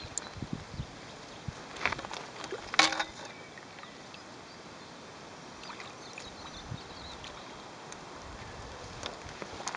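Shallow river water lapping and splashing against rocks, with two short splashes about two and three seconds in and a few smaller ones near the end, over a steady faint hiss.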